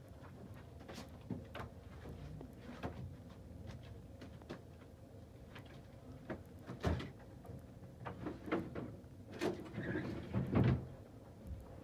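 Scattered knocks and clunks of a person rummaging about a room while searching for something, sparse at first and turning into a busier, louder cluster near the end.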